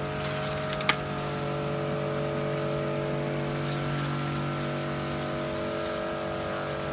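Kärcher K4 electric pressure washer running steadily: an even motor-and-pump hum with the hiss of the water jet spraying onto paving. One short sharp click about a second in.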